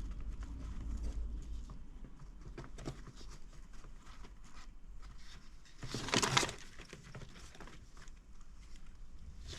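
Cockatiels moving about in a cardboard nest box, with small clicks and scratches of claws and beaks on cardboard, and one louder half-second rush of noise about six seconds in.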